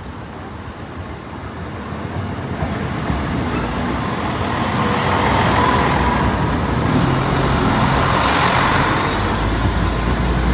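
East Midlands Railway Class 170 Turbostar diesel multiple unit running over a level crossing at low speed: its underfloor diesel engines running and its wheels rolling on the rails, growing louder for the first few seconds as it draws level, then staying loud as the carriages pass close by.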